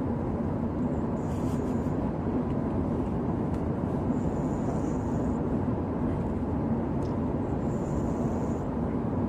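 Slow, soft snoring breaths: a faint high hiss about every three seconds, over a steady low hum.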